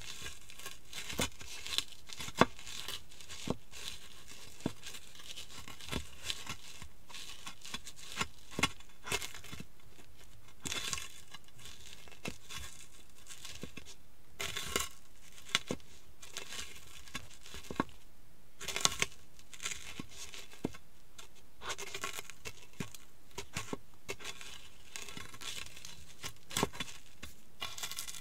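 Cheetos being crushed and ground underfoot by high-heeled sandals on a hard floor: irregular crisp crunches and crackles. There are a few denser bursts of crackling.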